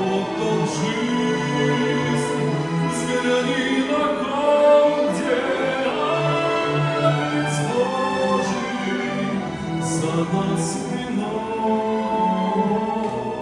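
Chamber string orchestra playing the closing bars of a slow sacred song, with a solo voice holding sung notes over it.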